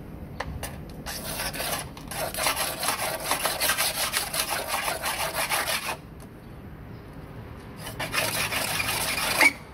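Razor blade scraping cured Z-Poxy resin off a fiberglassed model-airplane fuselage to level it: a dry rasping in quick short strokes, one run of about five seconds starting a second in and a shorter run near the end.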